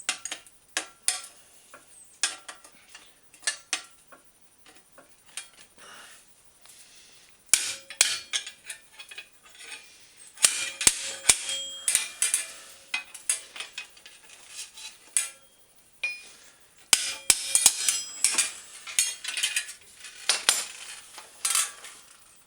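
Metal tapping and clinking as two-piece rapid rivets holding the fender stays to a Schwinn bicycle fender are tapped down with a brass punch to seat them. Scattered sharp taps at first, then busier runs of metal clinking and rattling about halfway through and again near the end.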